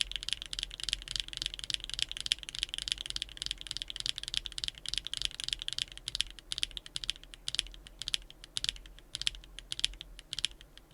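Akko x HMX Cilantro tactile mechanical keyboard switches being typed on rapidly: a dense run of high-pitched clacks that thins out in the second half and stops just before the end.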